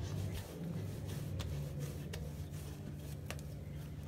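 Hands kneading and pressing a ball of dough on a marble counter, giving soft handling sounds and a few faint clicks over a steady low hum.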